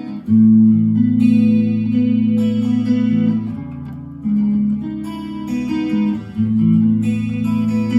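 Gear4Music LA Select Strat-type electric guitar played through a Zoom G1Four 'pop chorus' patch into a FoxGear Tweed 55 amp and Vox BC108 speaker cab: clean, ringing strummed chords, with fresh chords struck about a second in and again around four and six seconds.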